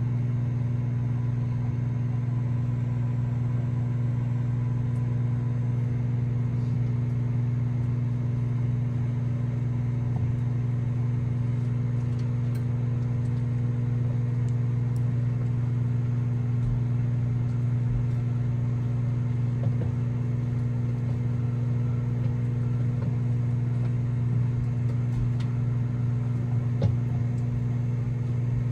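Microwave oven running with a steady low electrical hum while heating a bag of microwave popcorn, with a few faint clicks in the second half.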